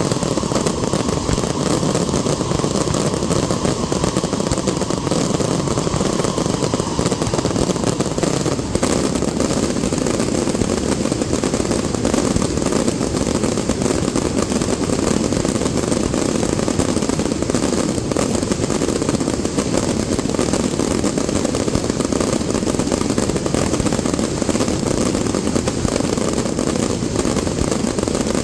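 Fireworks display in a dense, unbroken barrage of rapid bangs and crackling, with a faint whistle that fades out in the first several seconds.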